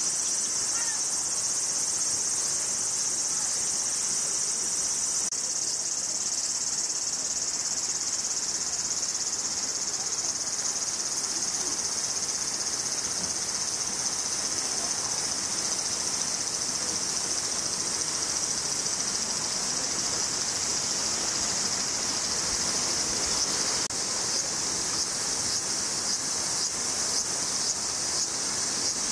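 Chorus of insects singing, a steady high-pitched shrill with a slight change in tone about five seconds in.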